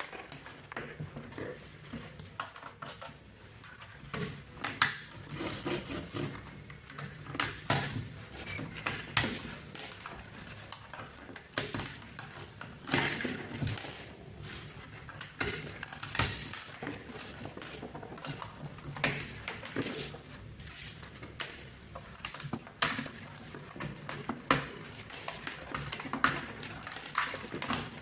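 Plastic keycaps of a mechanical keyboard clicking and clattering as they are handled, with irregular sharp clicks a few every couple of seconds.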